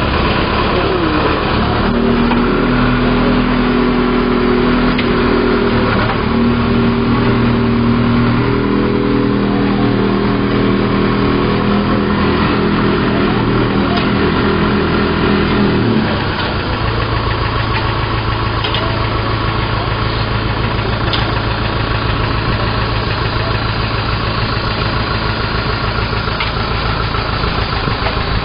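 Old JCB backhoe loader's diesel engine running at raised revs, then dropping back to a steady idle a little over halfway through.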